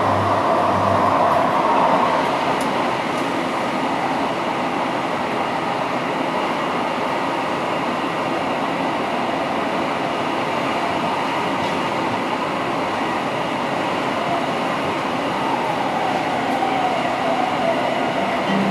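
A Düsseldorf Stadtbahn light-rail car running along the track, heard from inside the passenger compartment: a steady rolling rumble of wheels on rail, with a whine near the start and again near the end.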